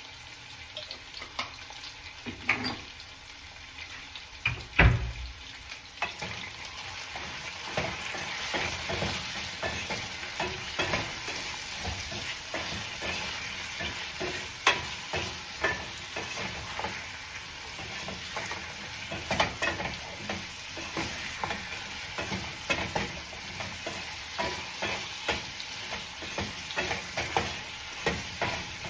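Potatoes frying in hot oil in a pan, sizzling steadily while a utensil stirs them with frequent clicks and scrapes against the pan. There is one heavy thump about five seconds in, and the sizzle grows louder about eight seconds in.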